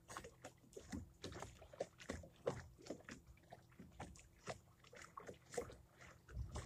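Faint, irregular lapping and slapping of small waves against a small boat's hull, a few soft splashes a second.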